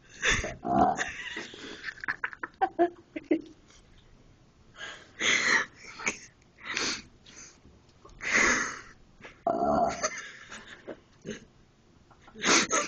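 Someone burping repeatedly: a string of short burps with breathy noises between them, the loudest about a second in and around the middle.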